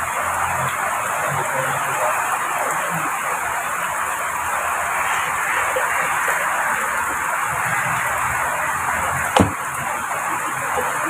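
Heavy rain falling steadily, with a single sharp knock about nine seconds in.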